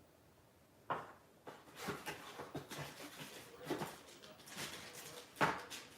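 Packaging rustling and items being handled while unpacking a box, with a sharp knock about a second in and another near the end.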